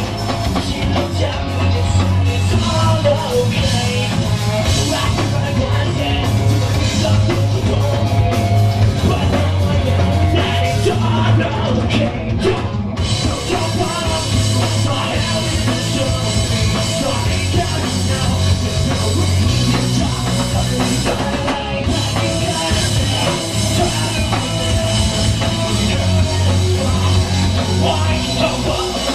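Rock band playing loud music with a drum kit.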